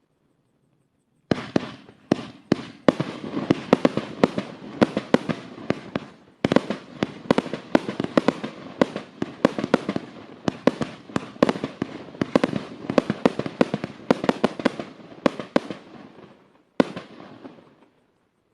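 120-shot 30 mm fireworks cake firing a rapid volley of sharp bangs, several a second. It starts about a second in, pauses briefly around six seconds, and ends with a last burst near the end that dies away.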